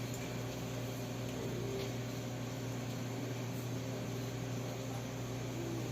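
Steady low machine hum with an even fan-like noise.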